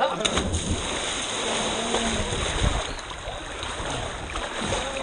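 Water rushing and splashing in a canyon stream, a steady noisy wash.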